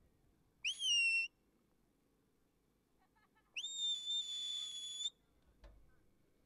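A sheepdog handler's whistle commands to a working dog. The first is a short note that slides up and holds for about half a second; the second rises quickly and holds steady for about a second and a half. A faint knock follows near the end.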